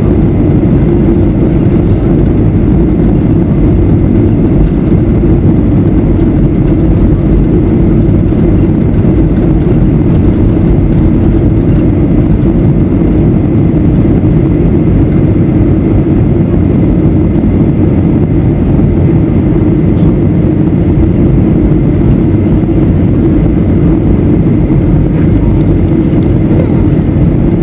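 Steady cabin noise inside a Boeing 737-800 in flight: its CFM56-7B turbofan engines and the airflow past the fuselage make a constant low rumble, heard from a seat behind the wing.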